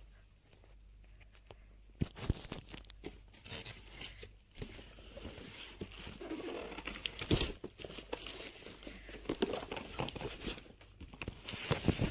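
Handling noises: irregular crinkling and rustling with scattered light knocks and clicks.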